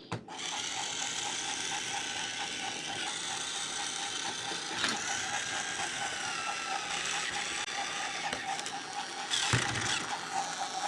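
Battery-powered Trackmaster James toy train running, its small motor and plastic gearbox whirring with a fast, even ticking; a couple of light knocks about five and nine seconds in.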